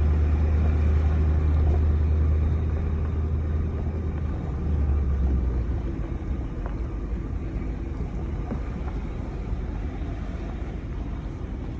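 A vehicle's engine running steadily with a deep rumble while driving slowly; the low rumble drops off about six seconds in as it eases off.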